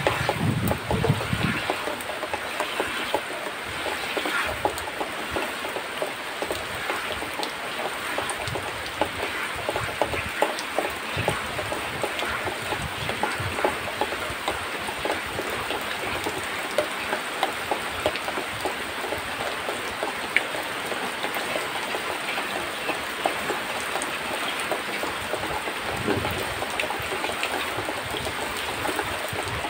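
Milk squirting in streams into a plastic bucket as a cow is milked by hand: a steady patter of quick spattering ticks over a soft hiss.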